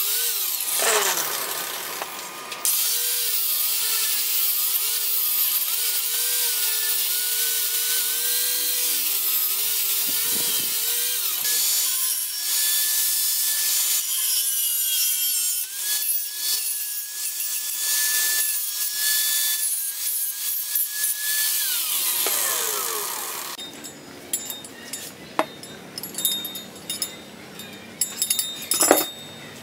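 Angle grinder with an abrasive disc grinding the edge of a steel axe head cut from an old saw blade; the motor's pitch wavers and dips as the disc bites, then the grinder stops about three-quarters of the way in. A few metal clinks of chain links follow near the end.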